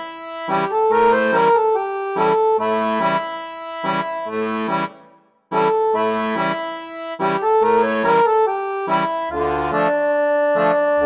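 Instrumental intro music: a bright, rhythmic melody in short repeated phrases that breaks off for half a second about five seconds in, then starts again.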